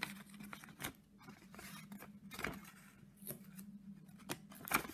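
A folded sheet of graph paper being handled on a wooden tabletop as its two ends are brought together into a square prism: scattered light crinkles, creases and small taps of paper against the table.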